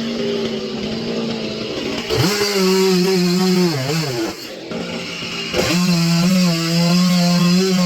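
Chainsaw engine running, throttled up about two seconds in and held at high revs. It wavers and dips briefly around four seconds, eases back, then is throttled up again near six seconds.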